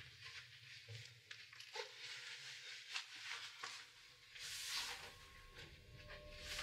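Faint rustling and swishing of bedsheets as people move on a bed, with a few light knocks and a low steady hum beneath; the loudest swish comes about four and a half seconds in.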